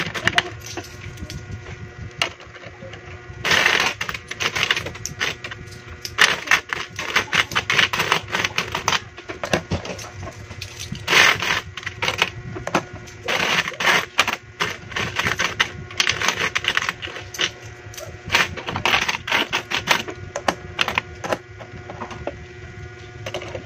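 Philippine peso coins clinking and clicking as they are picked from a loose pile and stacked into columns by hand, in irregular flurries of quick metallic clicks with short lulls between.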